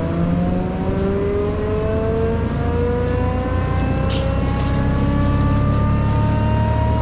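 Forestry mulcher running, with a deep engine hum under a whine that rises slowly and steadily in pitch as the mulching head spins up.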